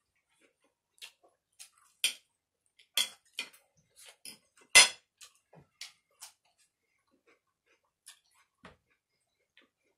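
Metal fork clinking and tapping against a glass serving plate in a series of irregular sharp clicks, with the loudest and heaviest knock about five seconds in.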